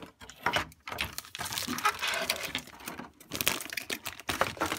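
Thin clear plastic bag crinkling and crackling irregularly as hands pull it open to unwrap a toy part.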